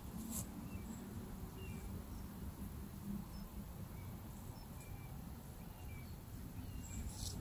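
Faint countryside ambience: small birds chirping sparsely and briefly over a low steady rumble, with a short rustle near the end.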